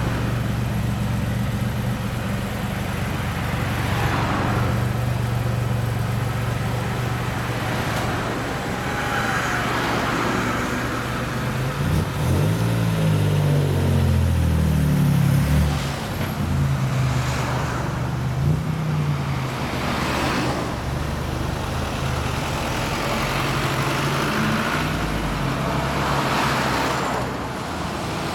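Nissan Fairlady Z (Z31 300ZX) exhaust through aftermarket headers and a one-off muffler, idling steadily. About twelve seconds in, the revs rise and fall as the car pulls away and shifts up, then it settles into a steady run that fades slightly near the end.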